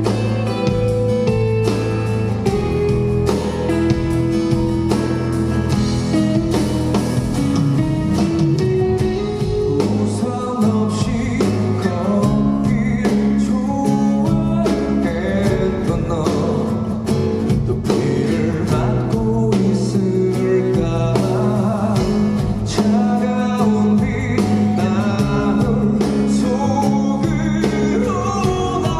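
Live song: a male voice singing over a strummed acoustic guitar.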